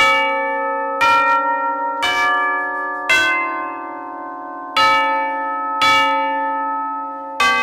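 Tubular bells played as a slow melody: seven struck notes about a second apart, each at a different pitch and ringing on into the next.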